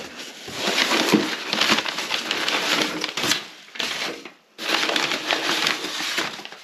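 Crumpled brown packing paper being pulled and handled inside a cardboard box, crackling and rustling in two long stretches with a short pause between them.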